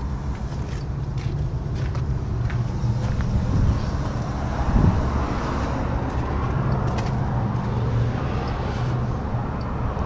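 Steady low rumble of a vehicle engine idling, with small handling clicks and one short, louder thump about five seconds in.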